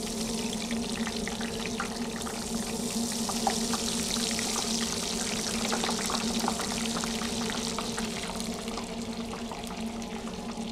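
Crinkle-cut fries frying in hot grease just after being dropped in, a loud bubbling hiss with scattered crackles that swells over the first few seconds and eases off toward the end. A steady low hum runs underneath.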